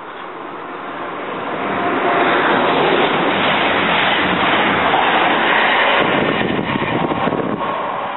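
Class 221 Super Voyager diesel-electric multiple unit passing at speed. The noise of engines and wheels builds over the first two seconds, holds loud for about five seconds as the train goes by, then fades away.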